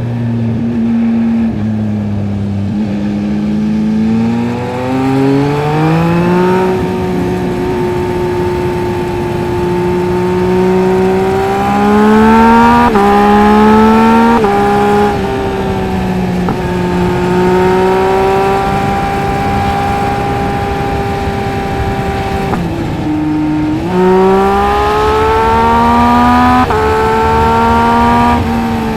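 Yamaha MT-09 SP's three-cylinder engine through a LeoVince LV Race exhaust, pulling up through the gears: the pitch climbs and drops back at each upshift several times, with two longer stretches of steady cruising in between.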